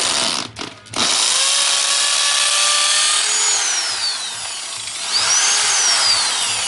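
Bosch GSB 550 impact drill in its concrete (hammer) setting, drilling into a concrete block with a masonry bit. It stops briefly about half a second in, then runs steadily again, the motor pitch sagging a couple of times as it bores in toward the depth gauge.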